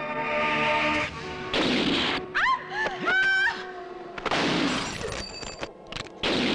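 Action film shootout soundtrack: a swelling music chord, then loud gunshot blasts about one and a half seconds in, again past four seconds and near the end. Between the first blasts there is a high sliding pitched sound.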